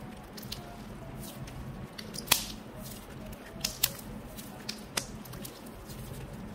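Pink slime being squeezed and stretched by hand, giving sticky crackles and several sharp pops; the loudest pop comes about two seconds in.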